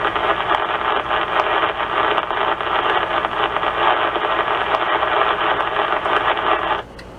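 Static and hiss from a CB radio receiver on 27.650 MHz lower sideband: a steady rush of band noise with faint crackle, cutting off suddenly near the end.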